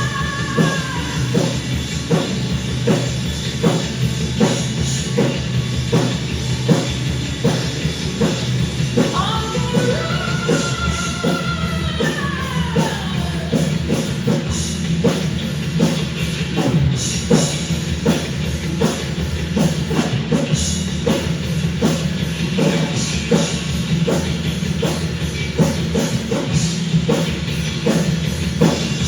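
Loud rock music with a drum kit keeping a steady beat, with a falling pitch slide about ten seconds in.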